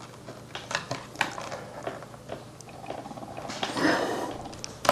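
Small clicks and knocks of parts being handled and set in place on a LEGO-built holder, with a longer rustling clatter about four seconds in.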